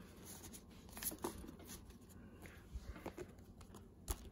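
Pokémon trading cards being handled and shifted on a pile: faint rustling with a few light clicks of card against card.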